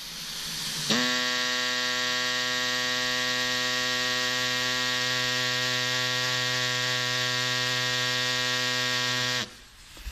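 Pneumatic reciprocating air saw cutting through a plastic trim panel: a steady buzz that builds up over the first second and cuts off abruptly near the end.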